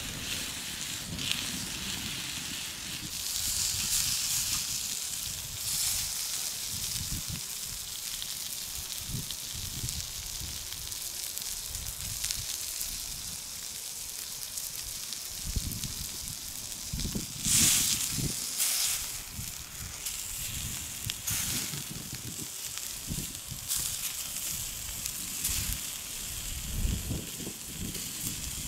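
Steaks sizzling on a flat stone slab heated by an open wood fire, a steady hiss with the fire crackling and popping underneath. One louder burst comes about two-thirds of the way through.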